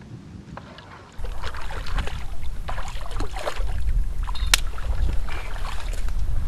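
Wind buffeting the microphone: a loud low rumble that sets in suddenly about a second in, with scattered light clicks and rustles over it.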